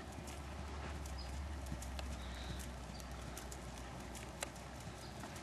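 Hoofbeats of a horse cantering on a sand arena, over a steady low rumble.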